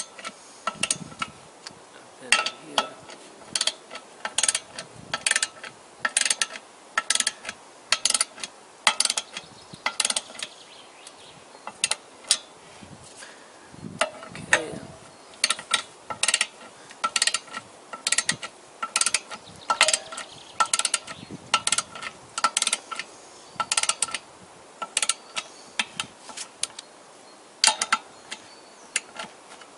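Socket ratchet clicking in quick runs of sharp clicks, with short pauses between, as the bolts of a clutch pressure plate are run down onto the flywheel.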